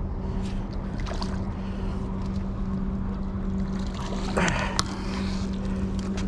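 A steady low engine hum runs throughout, over wind rumble on the microphone. About four seconds in, a hooked coho salmon thrashes at the surface with a short splash, followed by a sharp click.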